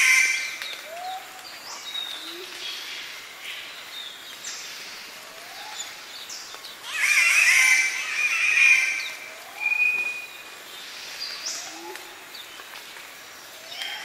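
Morning bird calls in Australian highland rainforest, with spotted catbirds and Lewin's honeyeaters calling. A short, low, upswept note repeats about every second and a half throughout. Loud, harsh calls break in about seven seconds in and again near nine seconds, followed by a brief clear whistle.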